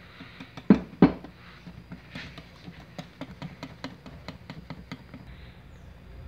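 Wire whisk clinking against a glass bowl while whisking flour into cake batter: two louder knocks about a second in, then a run of light quick taps, about four a second, that die away near the end.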